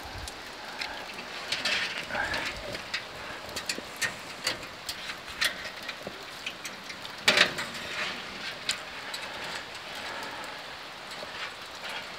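Steady rain with scattered drips, over small clicks and rustles of a thermometer probe and its wire being handled at an open charcoal smoker. There is a louder knock about seven seconds in.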